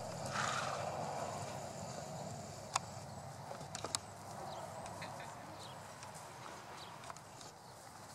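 Horses walking on soft dirt and grass, with a few sharp clicks about three and four seconds in over a soft rushing noise at the start.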